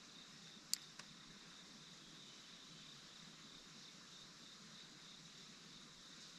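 Near silence: a faint steady high-pitched drone, with two sharp clicks about three-quarters of a second and a second in.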